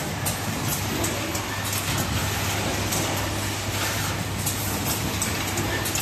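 Automatic wire harness cutting and crimping machine running: a steady low hum with short, high clicks every second or so.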